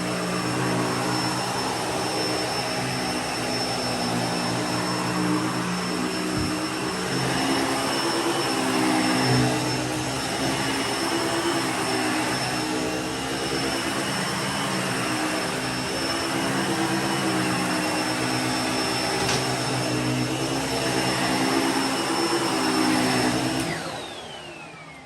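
Bissell Pet Hair Eraser Turbo upright vacuum running steadily, with a thin high whine over a motor hum that shifts in pitch now and then. Near the end it is switched off and the motor winds down, its whine falling in pitch.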